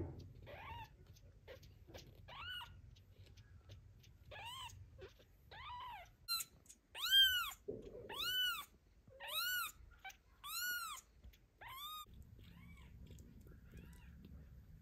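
Newborn kitten mewing over and over, a run of short, high calls that each rise and fall in pitch, about one a second, loudest in the middle. These are the distress calls of a kitten left alone and crying for its mother.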